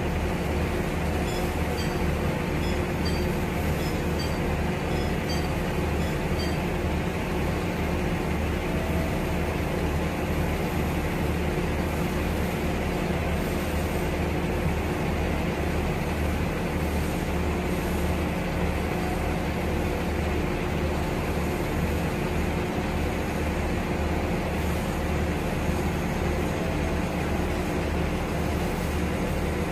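Steady low diesel hum of a standing passenger train idling, with faint high chirps in the first several seconds.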